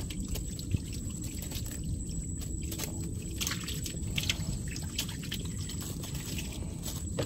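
Water lapping and trickling against a small boat's hull in irregular small splashes and ticks, over a steady low rumble of wind on the microphone.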